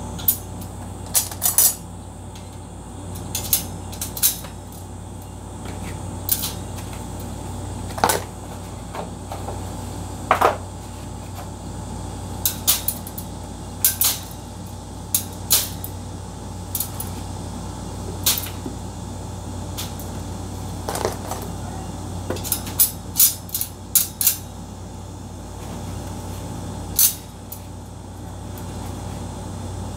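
Hatching eggs and plastic egg trays being handled: irregular light clicks and taps of eggshells against plastic, some in quick clusters, over a low steady hum.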